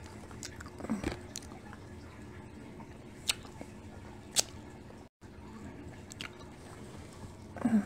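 Quiet eating sounds: snow crab shells being picked apart by hand, with a few sharp little clicks and cracks spread through and soft wet chewing.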